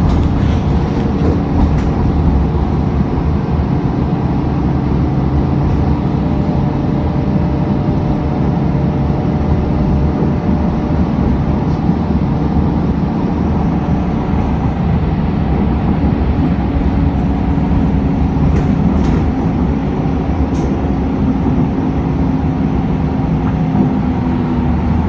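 Steady drone of a moving city bus heard from inside the cabin: drivetrain hum and road rumble, with a few faint clicks of rattling fittings.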